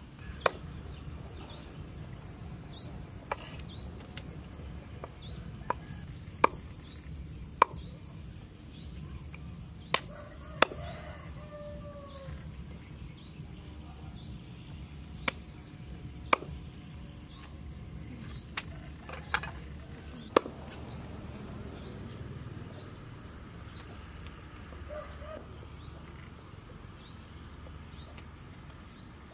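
Meat cleaver chopping raw chicken feet on a wooden chopping board: about a dozen sharp, irregular chops that stop about two-thirds of the way through. A chicken clucks now and then in the background.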